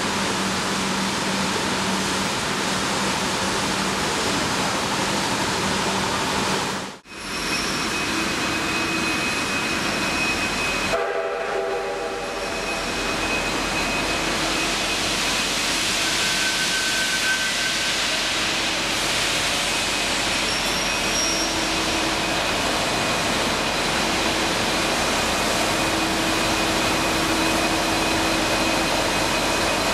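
Steady din of a large railway station under its roof, with a Victorian Railways K class steam locomotive standing at the platform hissing steam. The sound briefly drops out about seven seconds in.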